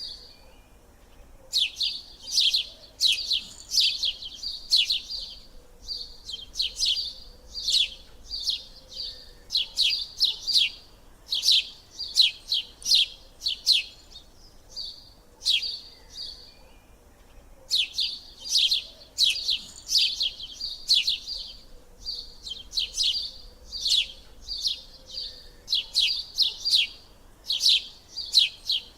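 A bird chirping over and over: quick runs of sharp, high chirps, several to a burst, with short pauses between bursts.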